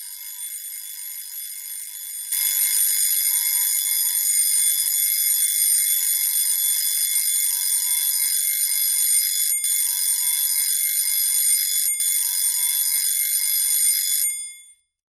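A shrill, high-pitched electronic alarm tone of several steady pitches ringing, stepping louder about two seconds in, with two very brief breaks, then cutting off near the end.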